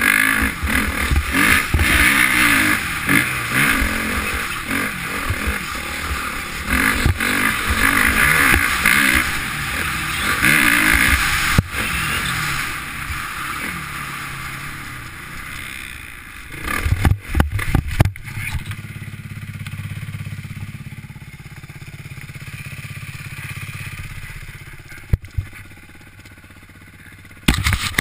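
Motocross bike engine heard from a helmet-mounted camera, revving up and down as it is ridden. About sixteen seconds in comes a run of heavy knocks, then the engine runs steadily at low revs for several seconds before getting loud again near the end.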